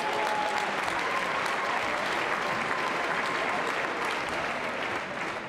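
Arena crowd applauding: steady clapping that eases off near the end.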